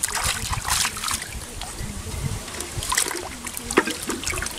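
Hands splashing and sloshing in shallow muddy water, with irregular splashes and drips.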